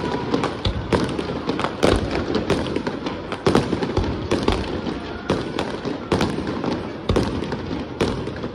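Fireworks going off: a rapid, irregular run of sharp bangs, a few a second, over a continuous background of noise.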